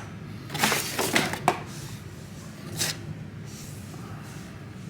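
Plastic toy balls and packaging being handled: a few short rustles and light clicks about a second in and once more near three seconds.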